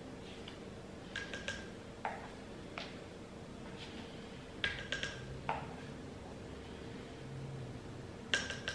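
A small metal measuring spoon clinking against a stainless steel pot as spoonfuls of powder are tipped in. The clinks come in quick bursts of a few taps with a short ring, three times about three and a half seconds apart, with soft single clicks between them. A faint steady hum runs underneath.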